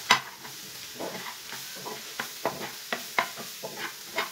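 Slotted metal spatula scraping and tapping against a non-stick frying pan as scrambled egg with onion, tomato and chillies is stirred, in quick irregular strokes, the loudest right at the start. A faint sizzle of the food frying runs underneath.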